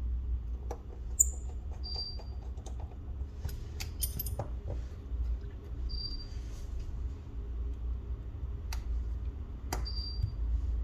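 Small tools and phone parts handled during a smartphone repair: scattered sharp clicks and light metallic clinks, over a steady low hum. A short high chirp sounds three times, a few seconds apart.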